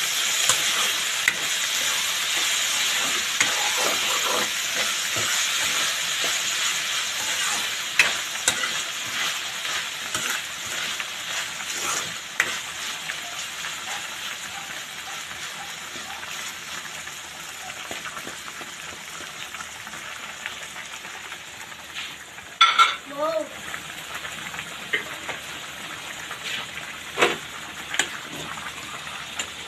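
Canned ground meat and sliced hotdogs sizzling in a frying pan while a spatula stirs them, with occasional clicks of the spatula against the pan. The sizzle is loudest in the first several seconds and then dies down.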